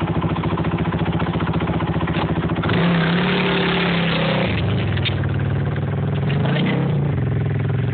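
Overheated Mercedes engine idling, its coolant having just boiled. About three seconds in, a hissing rush joins the idle for a couple of seconds.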